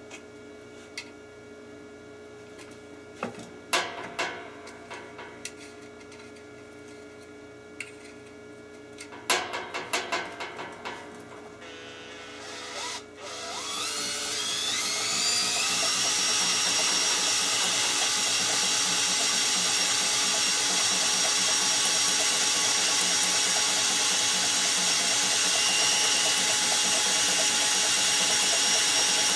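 Light clicks and knocks of handling wire and a spool. About halfway through, a cordless Makita drill starts, spins up with a rising whine, and runs steadily, winding copper magnet wire off a coil that turns freely on bearings.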